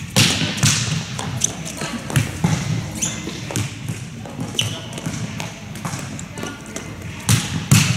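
Volleyballs being struck in a passing drill: sharp slaps of the ball off hands and forearms and the ball hitting the court floor. Several irregularly spaced hits, the loudest two close together near the end.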